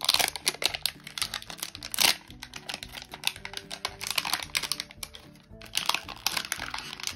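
Crackly crinkling and tearing of the wrapper layer being peeled off a L.O.L. Surprise toy ball, in dense runs broken by short pauses, over background music.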